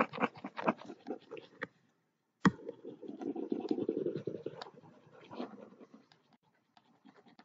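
Rapid scratching and clicking from the drawing input device, dragged back and forth to erase on a digital whiteboard, with one sharp click about two and a half seconds in; the scratching thins to scattered ticks near the end.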